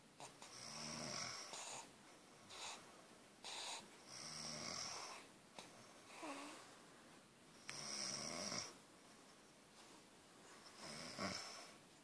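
A sleeping mother and baby snoring softly, a longer snore every three to four seconds with short breaths between.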